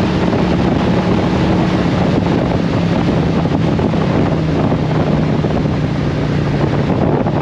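2017 Harley-Davidson Road Glide Special's Milwaukee-Eight V-twin running at cruising speed, with wind rushing over the microphone. The engine note dips slightly lower about halfway through.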